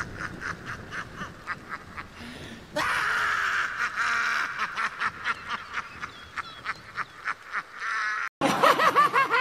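The Joker's manic cackling laughter, fast repeated ha-ha pulses, with a sudden louder burst about three seconds in. Near the end it breaks off and a different man's laugh begins.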